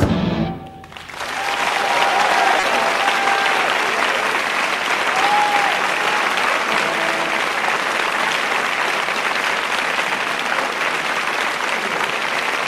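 A large concert audience applauding after a song, rising to steady, dense clapping with a few cheers. The band's music stops about half a second in, just before the applause swells.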